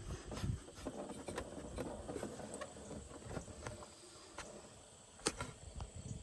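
Faint scraping and scattered clicks of an oil filter being unscrewed by hand, with one sharper click about five seconds in.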